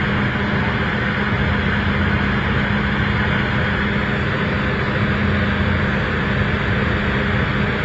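Steady hum of fairground machinery, a constant low drone with a noisy hiss above it that does not change.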